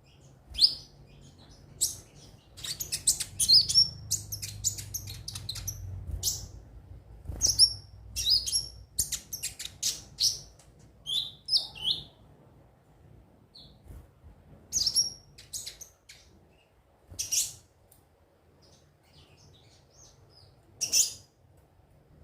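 Kolibri ninja (konin) sunbird chirping: a fast run of sharp, high twittering notes through the first half, then single chirps a few seconds apart.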